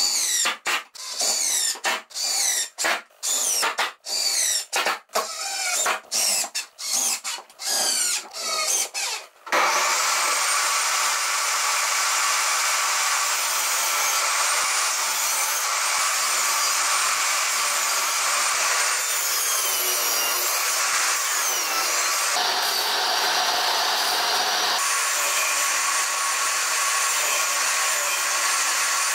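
A cordless drill runs in a quick series of short bursts, each spinning up and down, while drilling into a softwood board. About ten seconds in, a jobsite table saw starts and runs steadily as wood strips are fed through it. Its pitch sags briefly under load in the middle, and its tone shifts abruptly a couple of times.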